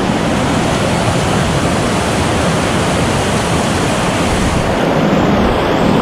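Fast whitewater creek rapids rushing: a loud, steady wash of water noise.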